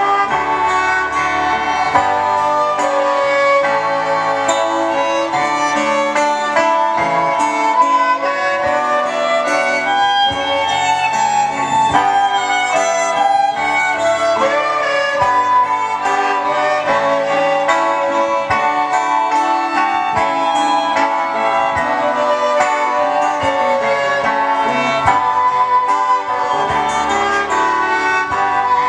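Two violins playing a melody together over a strummed acoustic guitar and an electronic keyboard, a small instrumental ensemble playing without a break.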